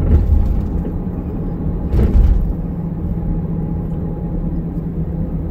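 Car driving along a city street: a steady low rumble of road and engine noise with a steady hum, and a single knock about two seconds in.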